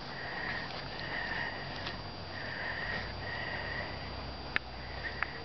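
Rhythmic breathy sniffing close to the microphone, about five strokes each lasting around half a second, with a couple of faint clicks near the end.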